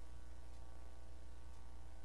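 Steady low hum with faint hiss: the recording's background noise, with no speech or music.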